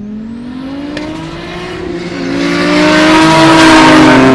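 Race car engines at full throttle, their note climbing in pitch, growing much louder about two seconds in and staying loud.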